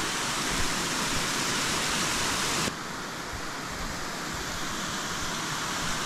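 Small waterfall cascading over rock slabs into a pool: a steady rushing hiss of falling water, which drops to a quieter, softer rush a little under three seconds in.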